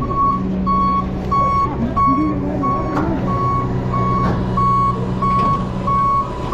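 A fire engine's reversing alarm beeping on one steady tone, about three beeps every two seconds, with the truck's engine running steadily underneath.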